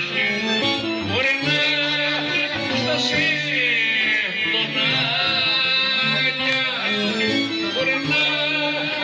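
Live Greek folk dance music played by a village festival band: a plucked string instrument under a high, ornamented melody line, going on steadily.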